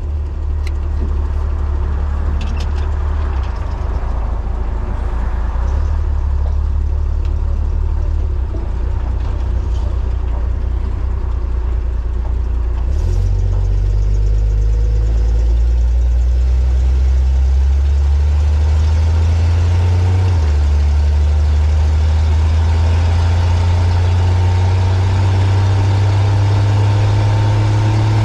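1941 Chevrolet truck's engine running as the truck pulls out and drives off. The low drone steps up and gets louder about halfway through and shifts again about two-thirds through as the truck picks up speed. A faint rising whine comes in over the last third.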